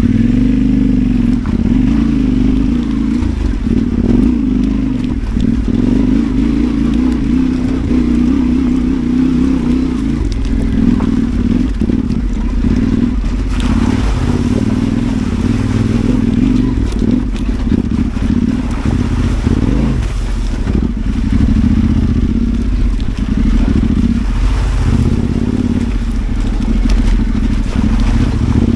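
Adventure motorcycle engine running at low, fairly steady revs while the bike picks its way over a rough, rocky trail, with occasional clatter and knocks from stones and the bike.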